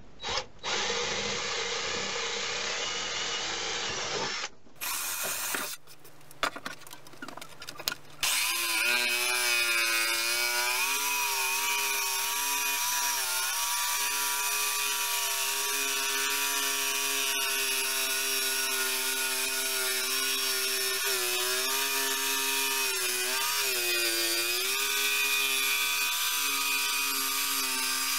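A cordless drill boring into a pine board, then a few clicks, then a Black Spur electric jigsaw running and cutting a curve through the board. The jigsaw's steady whine dips in pitch now and then as the blade loads up in the cut.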